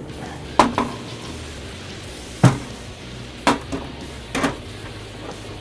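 A handful of separate sharp clicks from a computer keyboard and mouse, spaced irregularly about a second apart, the one about two and a half seconds in the loudest.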